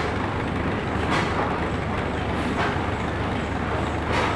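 Allis-Chalmers Corliss stationary steam engine running slowly under steam, a steady mechanical noise with a low hum and a regular surge about every second and a half.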